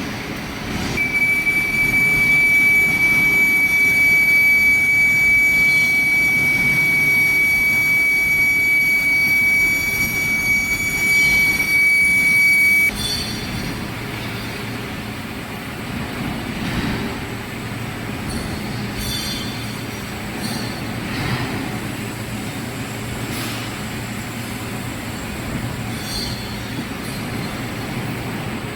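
Metal lathe cutting by hand feed, the tool squealing on the workpiece with one steady high-pitched tone for about twelve seconds that cuts off suddenly, then the lathe running more quietly with a few brief scrapes.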